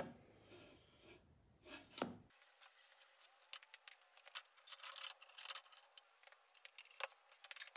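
Wooden boards and a plywood box being handled and shifted on a table saw's top: scattered light scrapes, taps and clicks, busier in the second half.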